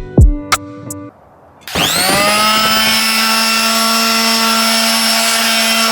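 Electric palm sander switched on: its motor spins up in a quick rising whine about two seconds in, then runs steadily.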